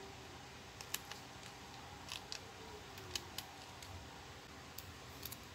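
Faint, scattered small clicks and taps of a pick prodding the spring-loaded carbon-brush holder inside a Bosch angle grinder, with light handling of the grinder's housing.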